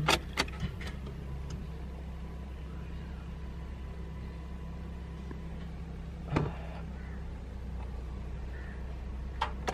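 A few light clicks of the ignition key being turned, over a steady low hum, with the car's engine not yet cranked.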